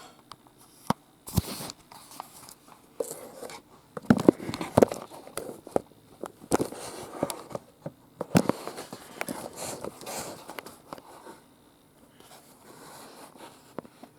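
Handling noises: irregular clicks and knocks with rustling, busiest from about four to eleven seconds in, then fainter near the end.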